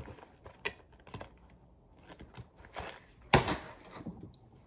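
A few scattered clicks and knocks of small objects being handled, the loudest a single knock a little over three seconds in.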